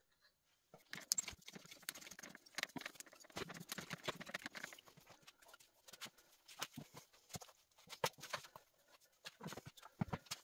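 Irregular clatter of a bicycle's handlebar stem and handlebars being twisted and wrenched back and forth by hand, with clicks, knocks and scrapes of metal as the rusted-in stem resists coming free.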